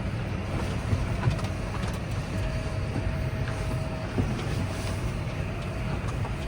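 Tractor engine running steadily, with a faint steady whine through the middle.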